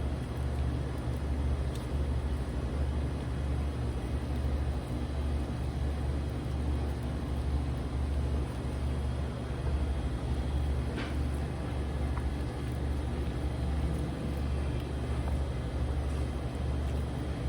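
Steady low mechanical hum with a faint click about eleven seconds in.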